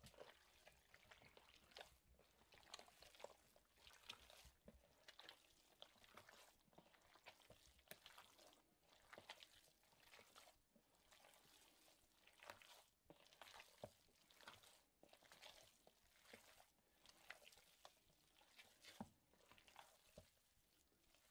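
Faint, repeated wet squishing of hands kneading ground venison in a bowl with jerky cure and seasoning water, about one or two squelches a second.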